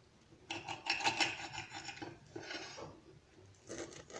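Knife sawing through the baked, golden crust of a stuffed pie, a scratchy rasping for about two seconds starting half a second in, then a few small scrapes near the end.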